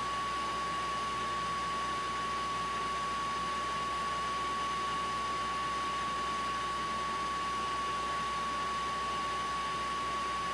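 A steady whirring noise with a constant high-pitched whine, holding an even level without change.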